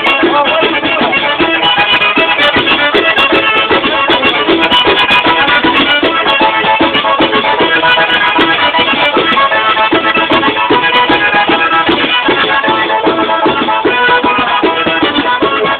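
Live tarantella played on a small button accordion (organetto) and a tamburello frame drum with jingles: a fast reedy melody over a steady, driving drum-and-jingle beat.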